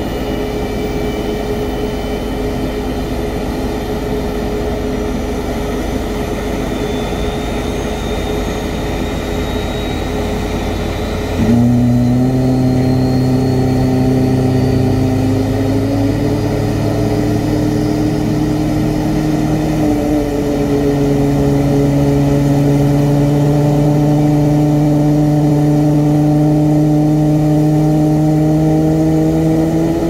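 CFM International LEAP-1B turbofan engine of a Boeing 737 MAX 8 starting up: a steady hum with a faint rising high whine, then about eleven seconds in the sound jumps louder into a low drone that steps up in pitch twice and keeps climbing slowly as the engine spools up.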